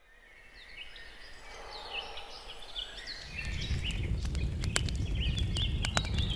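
Birds chirping, many short rising and falling calls fading in from silence. About three seconds in a low rumble comes in underneath, and a few sharp clicks sound near the end.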